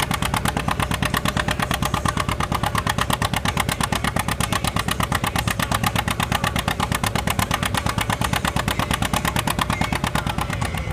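John Deere 60's two-cylinder engine working hard while pulling a weight-transfer sled, its exhaust a steady, rapid, even popping.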